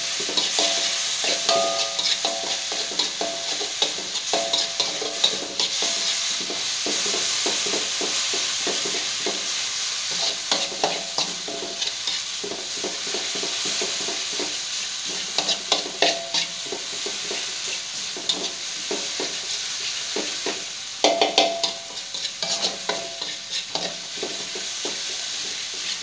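Chili spice paste sizzling in hot oil in a metal wok while a wooden spatula stirs and scrapes against the pan, giving a steady sizzle under repeated scraping and tapping strokes, with a few louder clusters of scraping along the way.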